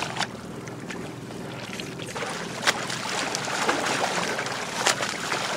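Water splashing and sloshing close to a boat's side as a swimmer strokes through the sea, with a boat's steady low engine hum underneath.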